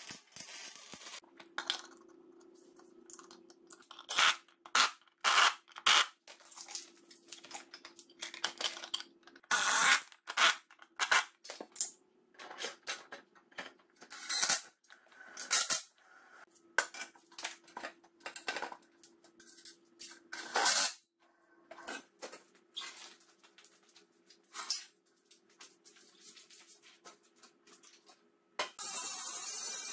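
Irregular metallic clanks and knocks as a square-tube steel frame and its wheels are handled and fastened. Near the end an angle grinder starts cutting steel with a loud, steady grinding hiss.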